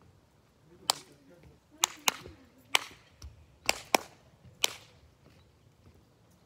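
Hand claps: seven sharp claps at an uneven pace, some in quick pairs, over about four seconds.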